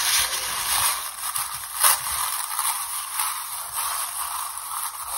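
Packaging being handled, rustling and crinkling steadily, with one sharper crackle about two seconds in.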